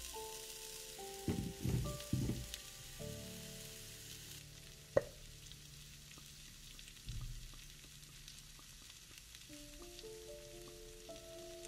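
Food sizzling in a frying pan, under soft background music. A few dull knocks come in the first couple of seconds, and one sharp click about five seconds in.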